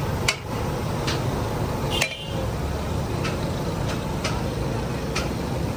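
Sharp clinks of utensils, roughly one a second, over a steady low rumble of street traffic.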